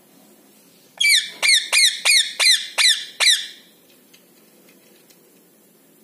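Rose-ringed parakeet (Indian ringneck) calling: a quick run of about seven loud, high-pitched calls, each dropping in pitch, about three a second, starting a second in and lasting about two and a half seconds.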